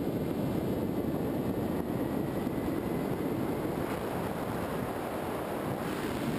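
Steady rushing noise of airflow and the electric motor and propeller on a GoPro riding aboard a Skywalker FPV model airplane in flight.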